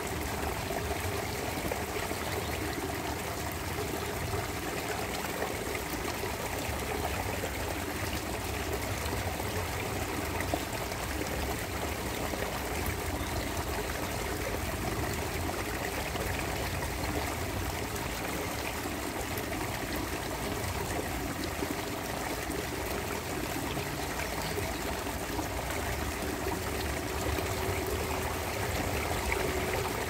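Waterfall: water falling and flowing in a steady, unbroken wash of sound.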